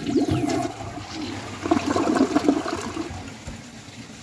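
2021 American Standard Champion toilet flushing with the handle held down: water rushing and swirling out of the bowl, with a louder gurgling stretch from about one and a half to two and a half seconds in, then easing off.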